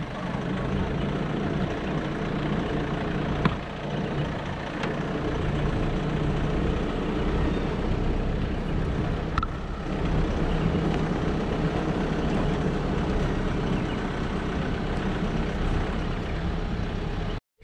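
A vehicle's engine running with tyre and road noise as it drives along a farm track, a few light knocks along the way. The sound cuts off suddenly near the end.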